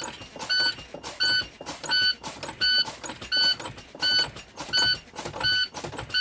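A truck's low air pressure warning alarm beeping steadily, about three beeps every two seconds, each beep a clear high tone, with quicker ticking clicks between the beeps. The alarm is sounding because air pressure in the brake tanks has dropped low while the service brake is pumped.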